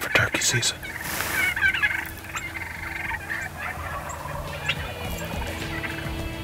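Wild turkeys calling: a flock of hens and jakes making a run of short, overlapping calls.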